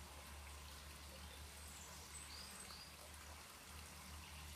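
Faint, steady breath blown into a dry-grass tinder bundle holding a bow-drill ember, to coax it into flame.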